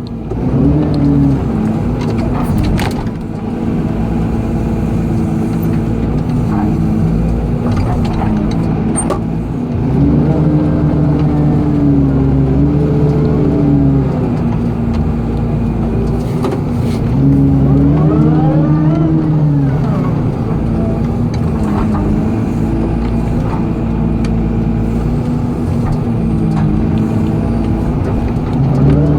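Excavator diesel engine running, its pitch rising and holding for a few seconds at a time, twice, as it works under load, with a few knocks from the machine.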